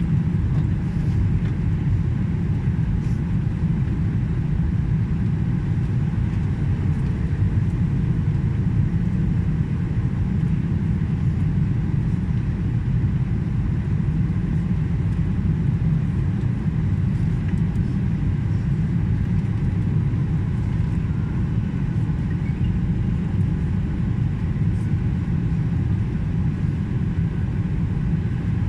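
Airliner cabin noise on final approach: a steady low rumble of engines and airflow that holds level throughout.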